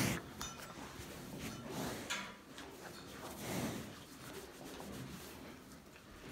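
A hand rubbing and scratching a calf's fur close to the microphone, heard as soft rubbing swishes with a louder scuff at the start.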